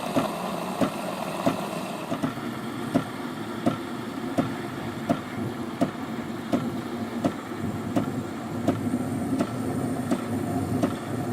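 Panarello steam wand of an Illy X7.1 capsule espresso machine frothing milk: a steady hiss with a sharp click repeating about every 0.7 seconds.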